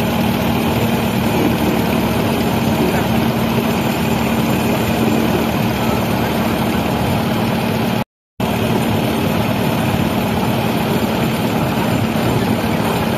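Motorboat engine running steadily, a constant low hum, cutting out for a moment about eight seconds in.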